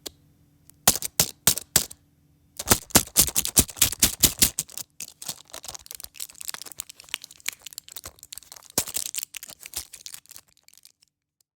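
A pack of pill tablets handled: a few separate sharp clicks, then a dense run of crackling clicks that grows softer and stops near the end.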